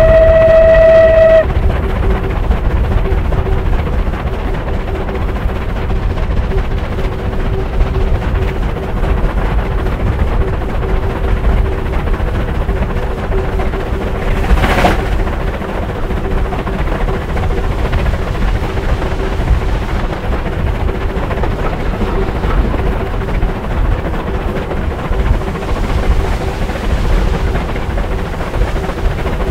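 Bulleid Battle of Britain class three-cylinder Pacific steam locomotive working hard up a steep bank, heard from the train it is hauling. Its whistle cuts off about a second in. After that the loud, steady exhaust and running noise carries on, with a brief louder rush about halfway.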